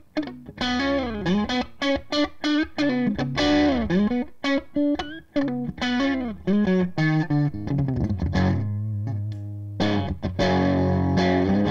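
Carvin DC400 electric guitar played through a Cris Custom 3.5 amp and a 1x12 cabinet with a Celestion Vintage 30 speaker, on a crunch overdrive tone. Quick lead phrases with string bends, then held notes ringing out near the end.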